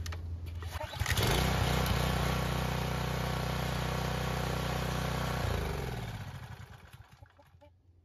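Briggs and Stratton single-cylinder pressure washer engine catching on the pull-start: it picks up sharply about a second in and runs steadily, the new rewind starter now turning the engine over. About five and a half seconds in it cuts out and winds down to quiet.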